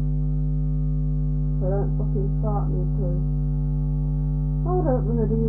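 Steady low electrical mains hum, with a woman's voice speaking briefly about two seconds in and again near the end.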